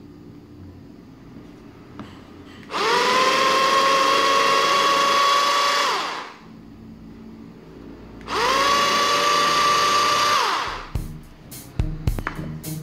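Small electric motor of a portable battery food chopper whirring in two runs of about three seconds each, spinning up quickly to a steady whine and winding down, as its triple stainless-steel blade chops carrot. Music starts near the end.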